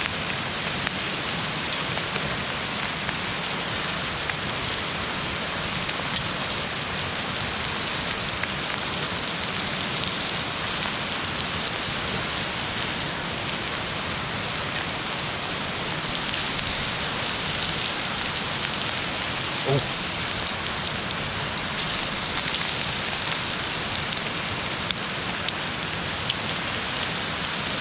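Dry-aged ribeye sizzling in butter in a hot cast iron skillet: a steady crackling hiss with a few small pops.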